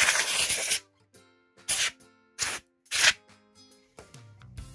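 Compressed-air duster can sprayed in short bursts of hiss: one lasting almost a second at the start, then three shorter puffs, blowing dust out of a laptop's fan and motherboard. Background music plays underneath.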